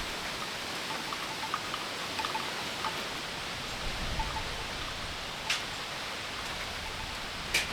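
Steady rain falling, with scattered drops ticking. There is a sharper tap about five and a half seconds in and another near the end.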